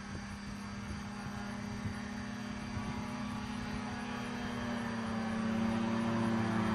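Buccaneer XA amphibious ultralight's engine and propeller droning in flight, a steady pitched drone that grows louder as the aircraft approaches, most of all in the last couple of seconds.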